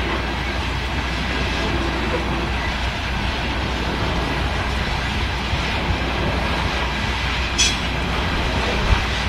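Freight train of coal cars rolling past at a distance: a steady rumble and rattle of wheels on rail. A brief sharp sound comes about seven and a half seconds in, and a low thump near the end.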